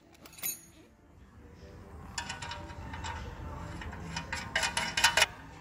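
Metal parts clicking and clinking as they are handled by hand: a Wisefab steering-angle bracket and its nuts being set against the front steering knuckle. The clinks come in quick runs and are loudest just before the end.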